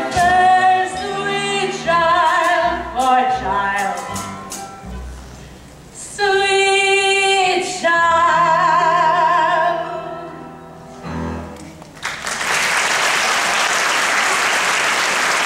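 A woman singing with strong vibrato over a live pit accompaniment with a plucked double bass, holding a long note near the middle as the song ends. At about twelve seconds in, the audience breaks into steady applause.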